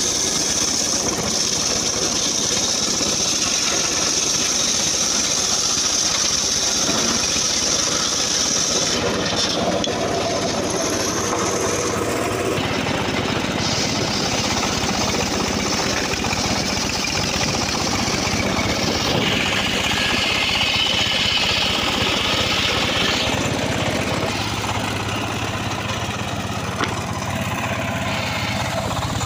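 Homemade table-mounted circular saw running and ripping a teak beam lengthwise into boards: a loud, steady machine noise with a high whine that shifts in pitch a few times.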